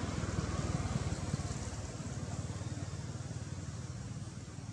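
Low rumble of a passing motor vehicle's engine, loudest in the first second or so and slowly fading.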